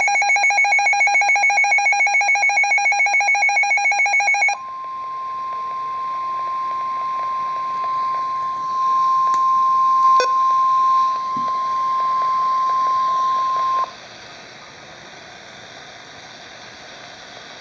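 Emergency alert broadcast tones: about four seconds of rapid electronic alarm beeping, then a single steady tone near 1050 Hz, the NOAA Weather Radio warning alarm tone, held for about nine seconds and cut off sharply. A low steady radio hiss follows.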